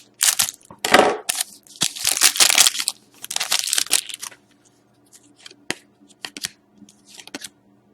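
Trading card pack wrapper being torn open and crinkled, a run of loud ripping and crackling for about four seconds. It is followed by softer scattered rustles and light taps as the cards are handled.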